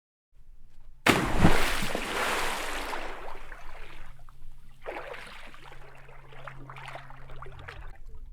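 Water splashing into a bowl: a sudden loud splash about a second in that trails off into sloshing, followed by a few smaller splashes and drips, over a faint low hum. It cuts off abruptly at the end.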